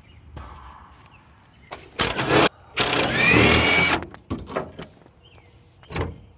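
Impact wrench hammering on a frozen truck-frame bolt in two bursts, a short one about two seconds in and a longer one about three seconds in, followed by a few short metal knocks.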